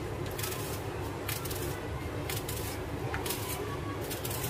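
Kitchen knife slicing through a raw onion held in the hand, about five crisp cuts roughly a second apart, over a steady low hum.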